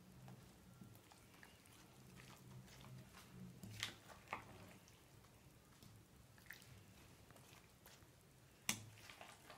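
Faint clicks and taps of a spoon against glass bowls and the soft squish of creamy salad being spooned from one bowl into another, with sharper taps about four seconds in and near the end, over a faint low hum.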